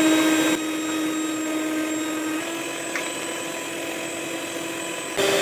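Electric stand mixer running steadily, its motor whining as the twin beaters whip cream. The whine drops quieter about half a second in and comes back up near the end, with a light click about three seconds in.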